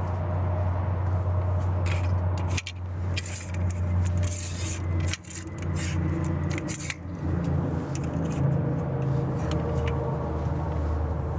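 Metal clicks and rattles of an RV awning's aluminium support legs and arms being handled and latched while the awning is stowed, mostly between about two and seven seconds in. Under them runs a steady low hum.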